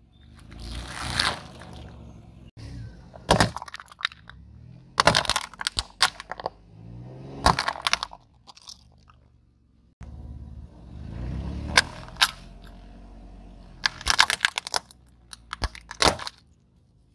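A car tyre rolling slowly over small objects on asphalt and crushing them, in several separate takes. A low tyre rumble carries clusters of sharp cracks, snaps and crunches of breaking plastic and packaging.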